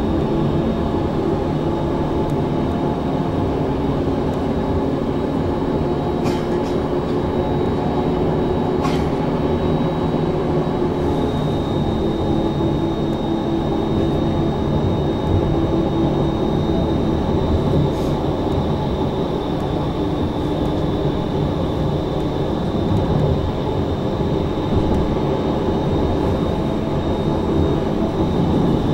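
Bombardier Flexity Outlook C low-floor tram running, heard from on board: a steady mix of rolling and motor noise, joined about ten seconds in by a steady high electrical whine, with a few faint sharp clicks.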